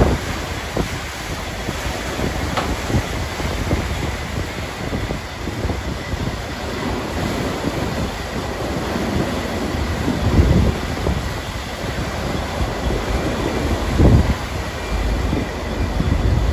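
Churning, rushing water in a ship lift's trough in front of an inland freighter's bow, over a steady low rumble, with louder thumps about ten and fourteen seconds in.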